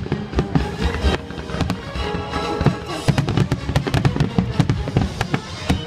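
Aerial firework shells bursting in quick succession, many sharp bangs through the whole stretch, with music playing underneath.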